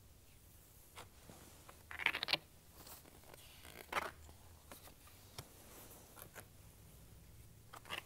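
Pages of a hardcover picture book being opened and turned: a few brief paper rustles and scrapes, the loudest about two seconds in.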